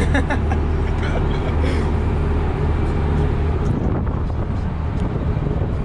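Farm tractor engine running steadily at road speed while it tows a heavy, wide disc, a deep constant drone with a higher hum over it that drops away about two-thirds of the way through.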